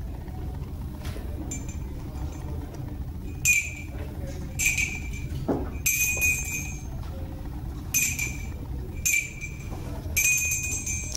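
A high, clear metallic chime struck about six times at uneven intervals of one to two seconds. Each strike rings briefly and fades, over a steady low room hum.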